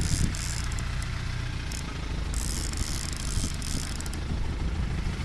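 Fishing boat's engine running at a steady low hum, with a couple of knocks right at the start.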